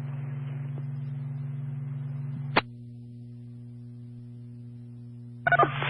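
Fire dispatch radio channel hum between transmissions. A single sharp click about two and a half seconds in, as the transmission drops, leaves a quieter steady hum with a few faint tones until the next station answers near the end.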